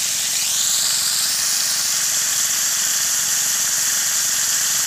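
Diced pork shoulder sizzling in hot oil in a nonstick wok: a loud, steady hiss as the meat sears and firms up, cutting off suddenly at the end.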